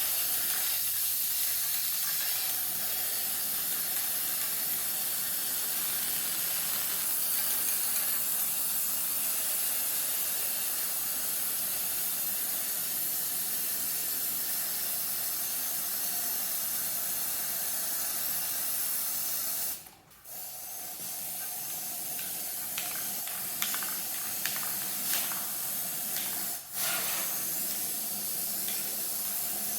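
Aerosol spray-paint can spraying in a long steady hiss, stopping for a moment about two-thirds of the way through and again briefly near the end before starting up again.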